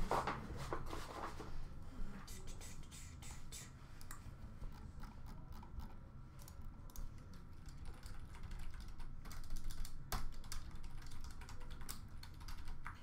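Typing on a computer keyboard: irregular runs of light key clicks, with a sharper click about ten seconds in.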